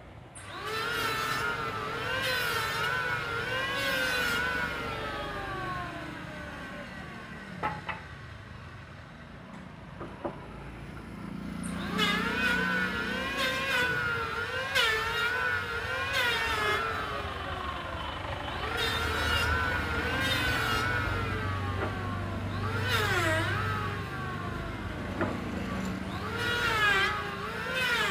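Electric hand planer running and cutting wood, its motor whine dipping and recovering in pitch with each push along the board. The whine falls away about five seconds in and comes back up about eleven seconds in.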